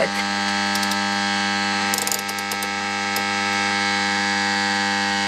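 Homemade superheterodyne radio's audio amplifier oscillating through its loudspeaker: a steady, buzzing tone thick with overtones. The gain of the end stage is turned up too high.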